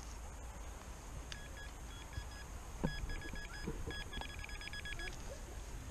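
Metal detector beeping on a target: a series of short high-pitched beeps that come in groups and quicken into rapid pulses near the end.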